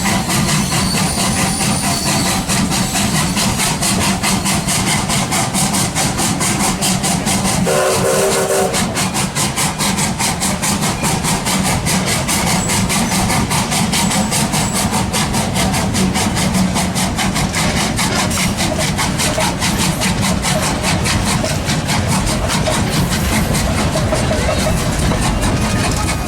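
Passenger train running, with a steady rumble and rattle of the cars on the track, and one short whistle blast from the locomotive about eight seconds in.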